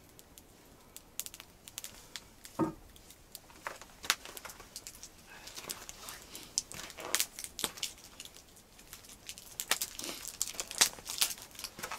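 Crinkling and rustling of packaging being handled, with many irregular sharp crackles.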